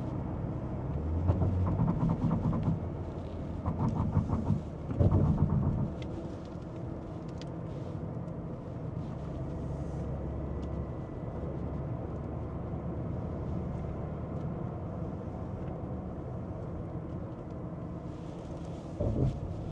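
Moving car heard from inside the cabin: a steady low hum of engine and road noise, swelling louder a few times in the first six seconds.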